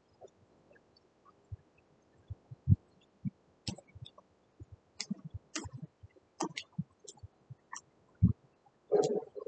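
Irregular clicks and taps of keys being pressed on a laptop keyboard, with a couple of heavier thumps, then a brief louder noise near the end.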